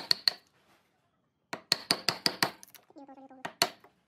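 A hammer striking a chisel to chop out a notch in a pine board, sharp metallic clinks: a couple of blows at the start, a quick run of about half a dozen blows in the middle, and one more near the end.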